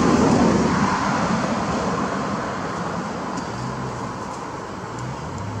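A passing vehicle's noise, loudest at the start and fading steadily as it moves away.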